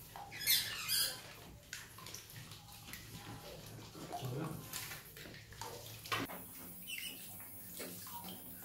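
Rats swimming and splashing in a shallow plastic pool of water, stirring the floating plastic balls; two sharper, louder noises stand out about half a second and one second in.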